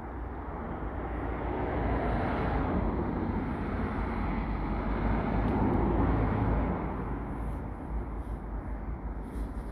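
A passing motor vehicle's engine and tyre noise, a low rumble that swells over several seconds to its loudest about five to six seconds in, then fades.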